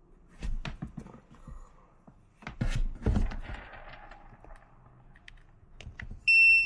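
Clicks, knocks and rustling of a cable and small electronics being handled and plugged in, with a louder cluster of knocks about halfway through. Just before the end a short, loud, high electronic beep sounds once.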